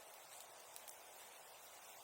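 Near silence: faint outdoor background hiss with a couple of soft crackles from the bonfire a little under a second in.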